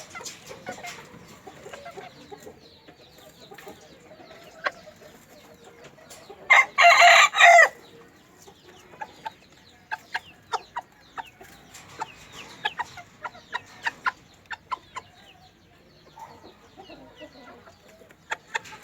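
Bantam chickens clucking, with many short sharp clicks, and a rooster giving one short, loud crow about a third of the way in.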